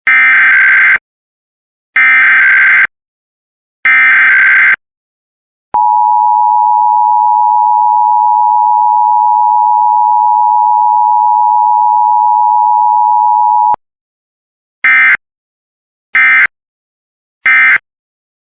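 Emergency Alert System digital header: three one-second buzzing data bursts about a second apart. Then an eight-second steady attention tone, and near the end three short end-of-message data bursts.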